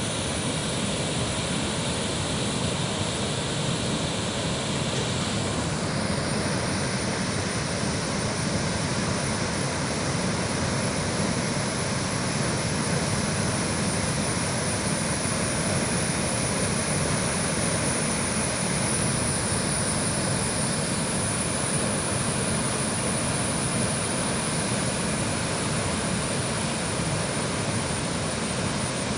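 Waterfall's steady roar of falling water.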